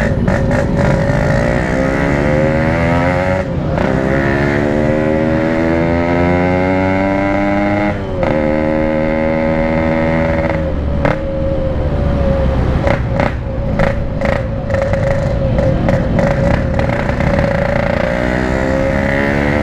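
Yamaha RX-King two-stroke single-cylinder engine on the move, revving up through the gears: the pitch climbs, drops briefly at each shift, climbs again, holds steady for a while, then rises again near the end. It is ridden gently because the engine is still being run in after a rebore.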